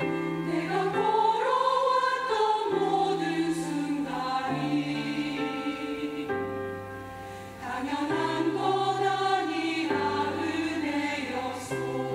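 Church choir singing a slow Korean hymn in several voice parts, with instrumental accompaniment holding low notes that change every couple of seconds. One sung phrase ends briefly before 8 seconds in, and the next phrase swells in.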